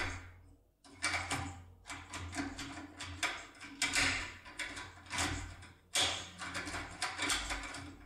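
Foil impression lock pick rattling and clicking in a euro-profile lock cylinder as its grip handle is fitted onto the shaft and worked by hand: a string of short, irregular metal clicks.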